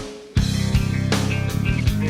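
Rock-style music with guitar and drum kit; after a short drop in level near the start, the full band comes in with a steady drum beat.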